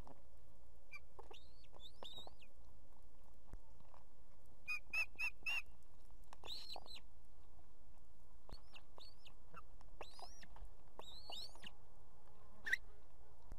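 Ospreys at the nest calling while a fish is torn and fed to the chicks: scattered short, high chirping whistles, with a quick run of four clear notes about five seconds in and one sharp call near the end. A faint steady electrical hum from the webcam runs underneath.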